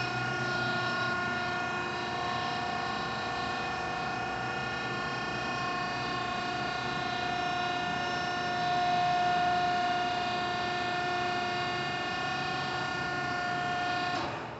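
Hydraulic vertical baler's 10 hp electric motor and hydraulic pump running steadily, a hum with a whine of several steady tones. It grows a little louder just past the middle and cuts off at the very end.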